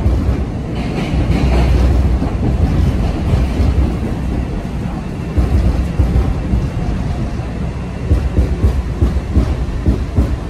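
New MBTA Red Line subway car running in a tunnel, heard from inside the car: a heavy low rumble of wheels on rail, with uneven clacks and knocks from about halfway through.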